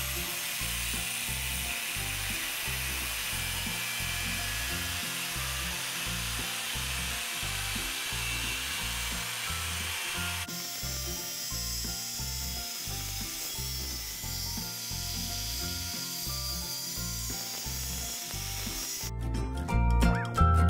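Angle grinder with an abrasive cut-off disc cutting lengthwise through the steel shell of a large air-conditioner compressor, a steady grinding hiss, with a few loud knocks near the end. Background music runs underneath.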